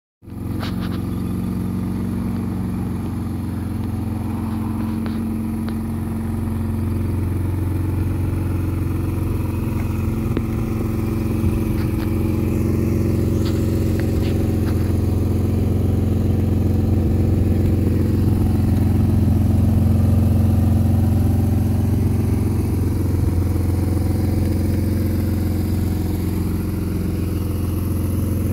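An engine idling steadily, a low even hum, with a few faint clicks.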